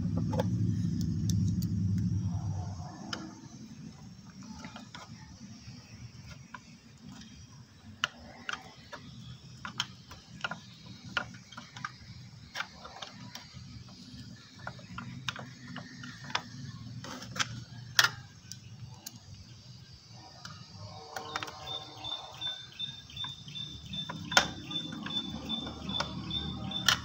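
Hand screwdriver turning screws to fasten an electric bike's new controller, with scattered sharp clicks of the tool and screws. Near the end comes a fast, even run of ticks. A low rumble fades out in the first few seconds.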